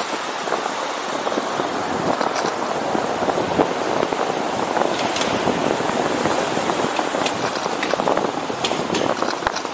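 Steady city street noise heard from a moving bicycle: traffic and tyres on asphalt, with frequent light clicks and rattles.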